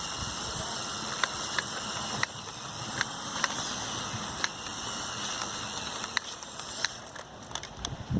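Motorised Lego Technic model truck driving over rough ground: a steady hissing noise with scattered sharp clicks.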